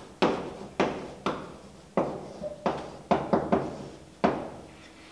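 Chalk on a blackboard as a word is written by hand: about nine sharp taps, each trailing off into a short scratch, at an uneven pace.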